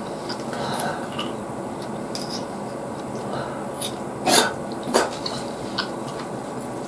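Eating noises: faint clicks as a Japanese babylon sea snail (ばい貝) is picked from its shell with a thin pick, then two short, sharp, loud mouth noises about four and five seconds in as the meat is eaten, over a steady background hiss.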